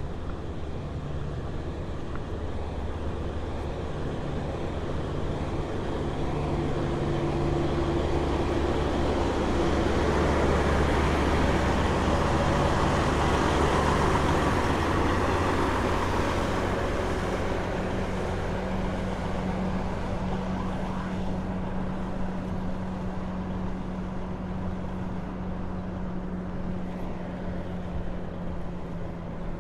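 Road traffic: a motor vehicle's engine and tyre noise swell to a peak about halfway through and then fade, over a steady low engine hum whose pitch steps up slightly after the peak.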